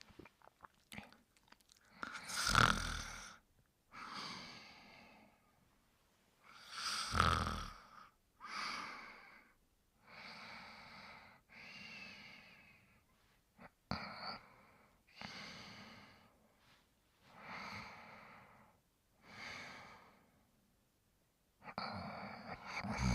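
Snoring: a steady series of heavy breaths in and out, about one every two seconds. The two loudest, a few seconds in, carry a low rattling rumble.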